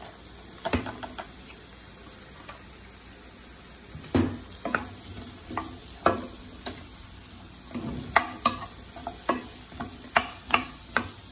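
Wooden spatula stirring and scraping chopped cauliflower, zucchini and sweet corn around a stone-coated frying pan, the spatula clicking against the pan at irregular moments, most from about four seconds in. Under the stirring there is a faint steady sizzle of the vegetables sautéing in coconut oil.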